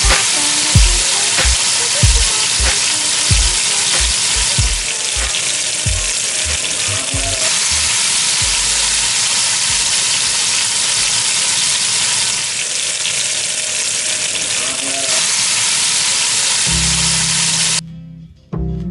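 Beef chunks searing in hot oil in an enameled Dutch oven: a loud, steady sizzle that cuts off suddenly near the end.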